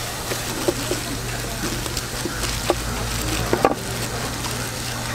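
A kitchen knife knocking on a wooden cutting board a few times while braised pig's trotters are cut and handled, over a steady low hum and background noise.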